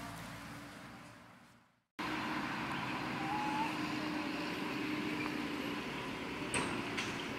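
Steady outdoor background hum of a distant motor. It fades out to silence and comes back abruptly about two seconds in, with a short bird chirp soon after and two sharp clicks near the end.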